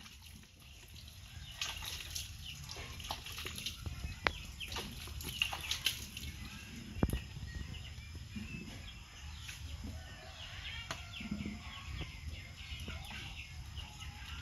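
Light splashing and dripping of water from a plastic tub as a monkey's hands are washed by hand, with scattered small clicks and knocks.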